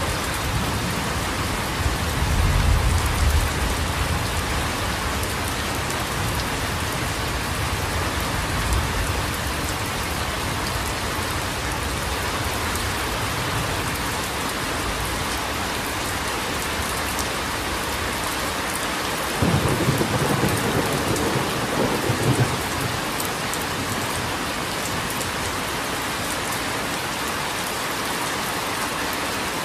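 Steady rain with thunder: low rumbles about two to four seconds in and again near nine seconds, and a louder peal of thunder about twenty seconds in, lasting around three seconds.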